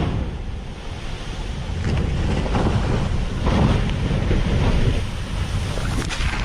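Strong wind buffeting the microphone over rough, rushing sea water, a heavy low rumble throughout.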